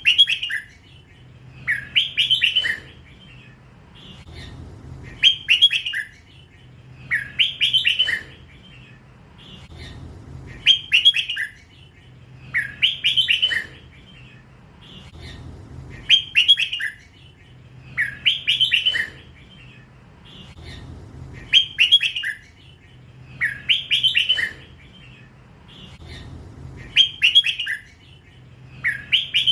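Hybrid red-whiskered bulbul singing 'lak wai' song: a short phrase of a few quick notes, repeated evenly about every two to three seconds.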